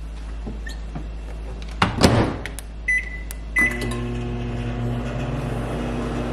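Samsung over-the-range microwave oven: the door shuts with a clunk about two seconds in, the keypad beeps twice, then the oven starts and runs with a steady hum as it warms a drink.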